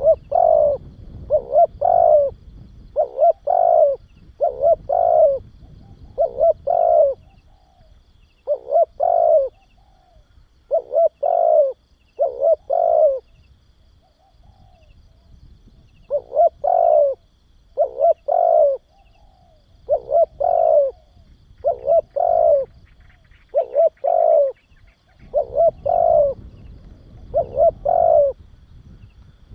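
Spotted dove cooing: repeated phrases of two or three short, low coos, one phrase every second or two with brief pauses between. It is the song played as a lure call to provoke other cu gáy doves.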